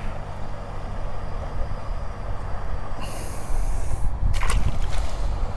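Steady low rumble of wind on the microphone, with a brief hiss about three seconds in. About four and a half seconds in comes a short splash as a small skimmer bream is dropped into the keepnet.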